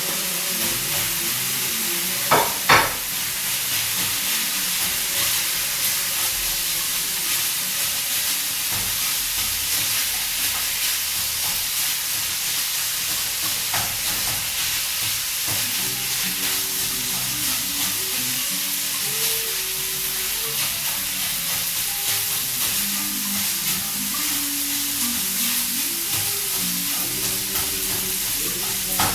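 Beef and rice sizzling as they fry in a pan while being stirred, with two sharp knocks about two and a half seconds in.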